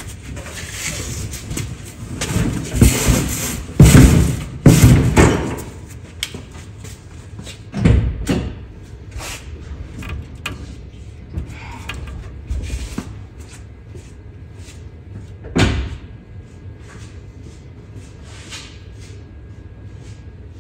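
Loud slams and knocks from work on a 1989 Chevrolet S10 pickup: a run of heavy bangs between about two and six seconds in, a single bang about eight seconds in, and another slam near sixteen seconds, with lighter knocks in between.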